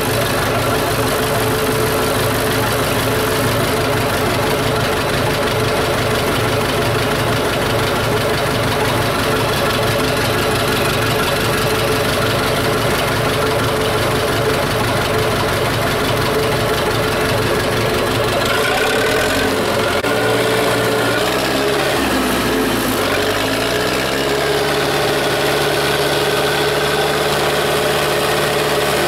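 Tractor engine running steadily, heard from inside the cab. About two-thirds of the way through, its speed drops and then climbs back to a steady pitch.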